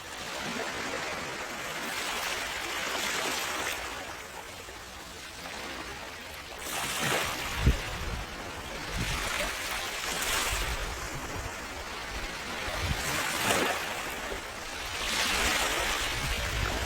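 Steady hiss of rain with ocean waves surging in broad swells every few seconds, and fire crackle. One sharp pop stands out a little past halfway.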